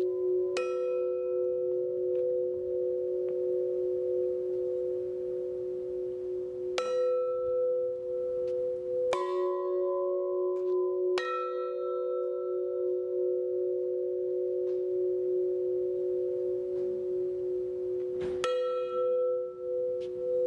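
Large hanging metal cylinder bells struck with a mallet: five strikes spaced a few seconds apart, each setting off a long ring of two pitches that carries on until the next strike.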